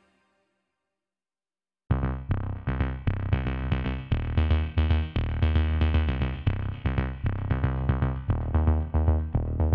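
Silence for about two seconds, then electronic music with a drum-machine beat and heavy bass.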